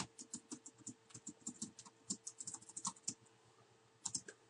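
Typing on a computer keyboard: a quick run of key clicks for about three seconds, a short pause, then a few more keystrokes near the end.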